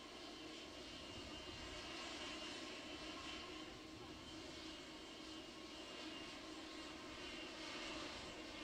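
Four turbofan jet engines of a C-17 Globemaster III cargo plane running as it taxis, a faint steady rush with a high whine that swells and eases twice.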